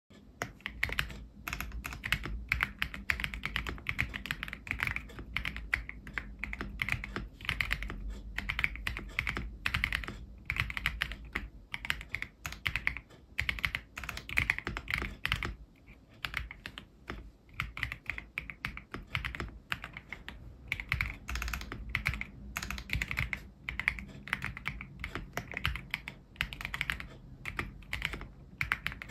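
Continuous typing on a CIY Gas 67 mechanical keyboard with lubed Ganss Soul Silver linear switches, PE switch foam and XDA-profile keycaps: a dense, steady stream of keystrokes.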